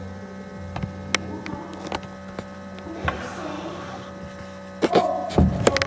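Steady electrical mains hum in the recording, with scattered clicks and a cluster of louder knocks and bumps about five seconds in.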